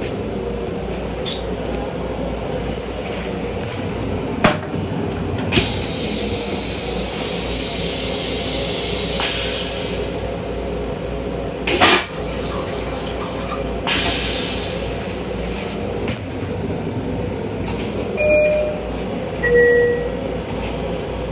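Steady rumble of a Long Island Rail Road M7 electric railcar in motion, heard from inside the car. Several sharp clicks and two short hissing surges cut through it, and two short electronic tones sound near the end.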